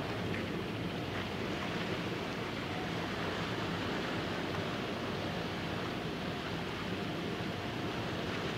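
Steady wind and sea noise: wind rushing on the microphone over the wash of small waves, with no distinct events.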